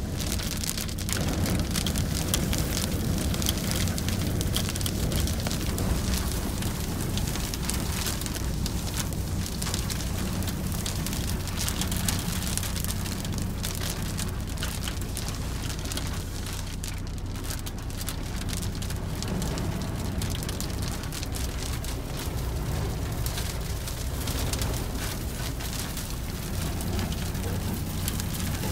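A dust storm pelting a car, heard from inside the cab: a dense, steady patter of wind-driven grit and drops hitting the windscreen and body over a low rumble of wind.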